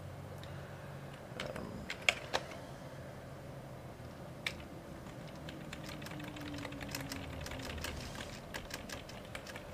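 A few scattered keystrokes on a computer keyboard, the sharpest pair about two seconds in, one more halfway through, and a quick run of light taps near the end, over faint room noise.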